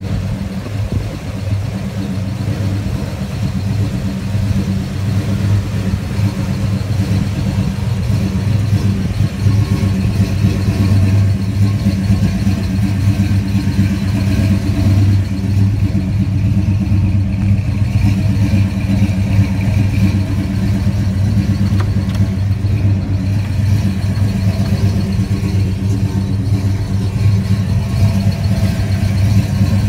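1970 Pontiac GTO's V8 engine idling steadily.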